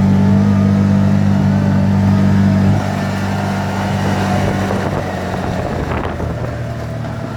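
Polaris Ranger XP 1000 UTV's twin-cylinder gas engine running hard at steady high revs under full throttle, then easing off about three seconds in and running on more quietly.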